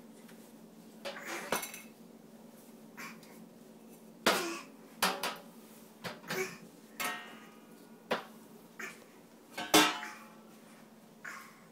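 A stainless steel step trash can banged irregularly with a small plastic toy ring: about a dozen sharp metallic knocks with short ringing after some, at uneven gaps, the loudest about four seconds and ten seconds in.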